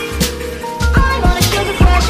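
Background music with deep bass and a drum beat.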